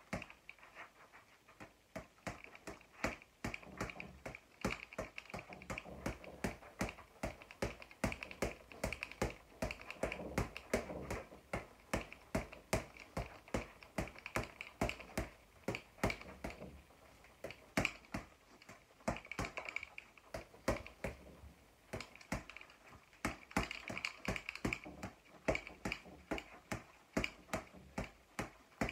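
Boxing gloves striking a floor-to-ceiling ball in a rapid, uneven series of sharp smacks, about two to three a second, as the ball rebounds on its cords between punches.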